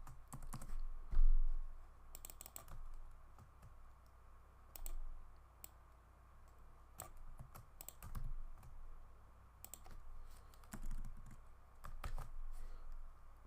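Computer keyboard typing in short, irregular bursts of key clicks, with a low thump about a second in.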